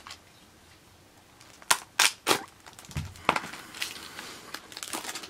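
Clear plastic shrink wrap being pulled off and handled around a Blu-ray case. It gives three sharp crackling snaps about two seconds in and a dull knock a second later, then busier crinkling toward the end.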